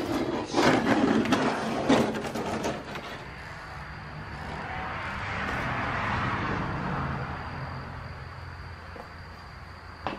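Footsteps and scuffing on a littered floor with camera handling for the first three seconds, then a distant rushing noise that swells to a peak about six seconds in and slowly fades: a vehicle passing.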